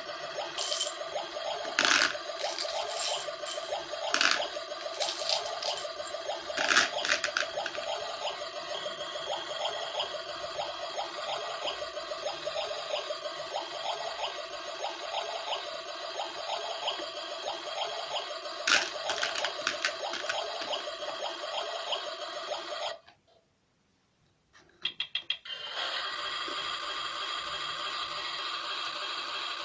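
Toy kitchen set's electronic sound effect, a steady looped water-like noise with a faint regular pulse, and a few sharp plastic clicks in the first seconds and once more later. The sound cuts out briefly and then starts again.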